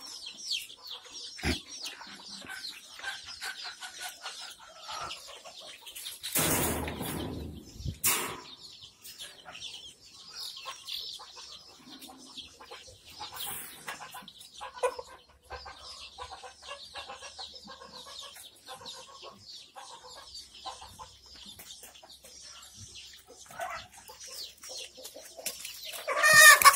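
A flock of Kadaknath and desi chickens clucking, with many high peeps and chirps throughout. A loud rustling flurry comes twice, about six and eight seconds in.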